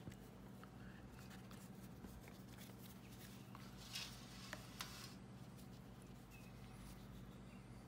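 Faint handling sounds of a plastic cookie cutter pressed into crumbly scone dough on a stone counter and the dough worked by hand: a few soft taps and rustles, the loudest about four seconds in, over a low steady hum.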